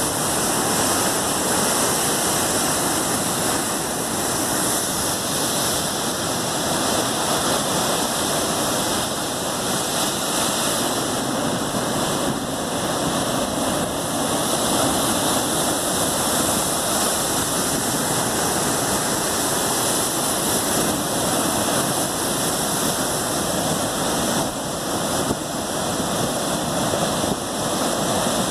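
Heavy surf from 30-foot seas breaking and churning against rocks: a steady, loud rush of breaking waves and whitewater.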